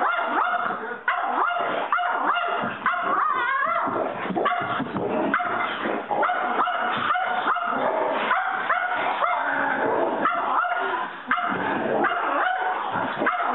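Dogs yapping nonstop in quick, high-pitched barks, about three a second.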